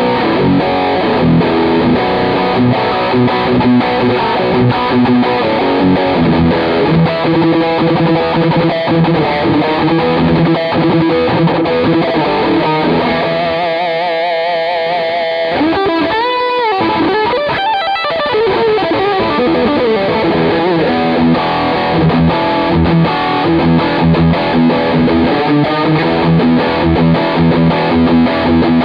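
Sqoe SEPRS 900 electric guitar played through a distorted tone on its bridge pickup. About halfway through, held notes waver widely up and down in pitch.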